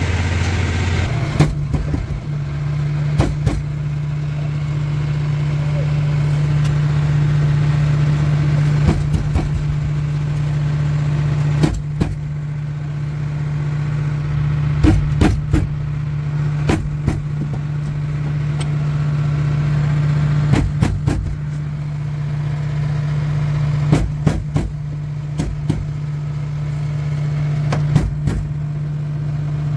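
An engine running steadily, its pitch stepping up about a second in and then holding, with scattered clicks and knocks from work on a truck cab door's window glass and rubber seal.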